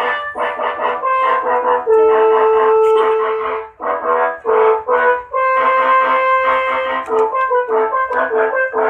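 Indonesian 'telolet' bus horn, a set of tuned air-horn trumpets, playing a fast melody of short, chord-like blasts with a few longer held notes, loud throughout and cutting off abruptly at the end.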